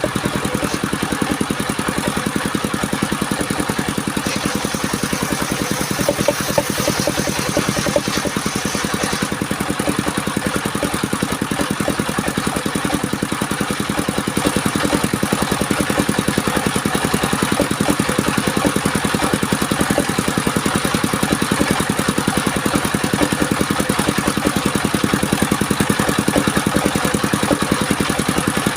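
A combustion engine running steadily at an even, unchanging speed, its firing beat continuous throughout.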